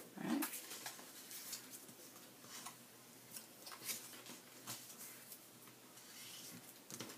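Cardstock being scored with a bone folder in a scoring board's groove, then folded and creased along the score lines: faint, scattered scratchy rubs and paper rustles.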